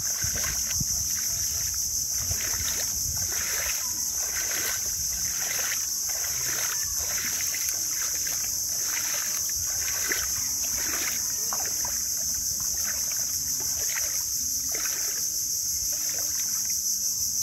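A steady high-pitched chorus of insects, with small waves lapping and splashing irregularly at the edge of the rising sea.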